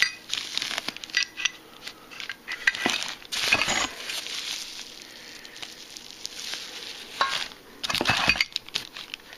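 Hands rummaging in a cardboard box, crumpling packing paper and shifting cardboard flaps in irregular bursts of rustling, with a few light clinks.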